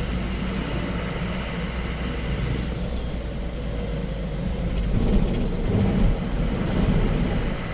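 Steady engine and road noise of a moving vehicle, swelling louder for a couple of seconds in the second half.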